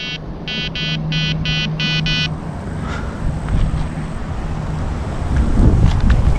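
Electronic carp bite alarm on a rod pod beeping: a quick, uneven run of about eight short high tones over the first two seconds, the signal of line being pulled at the rod, a bite. Low wind rumble on the microphone grows toward the end.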